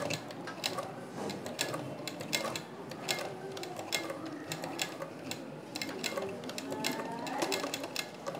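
Hand-turned domestic sewing machine stitching slowly, a steady run of clicks about three a second, as it sews through a thick seam with stiff can-can net underneath that makes the machine run heavily.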